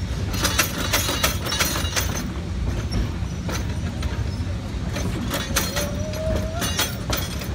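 Open wooden passenger car of a narrow-gauge logging railroad train rolling along the track, with a steady low rumble from the wheels and frequent irregular knocks and rattles from the car and rails.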